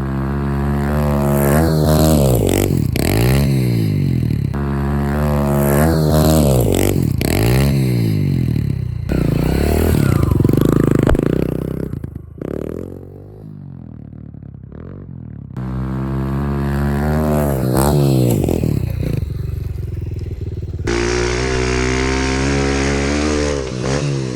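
Kawasaki KLX110 pit bike's small single-cylinder four-stroke engine being ridden, its pitch repeatedly dropping and climbing again as the throttle is rolled off and opened. About halfway through it falls to a quieter low running for a few seconds, then picks up again.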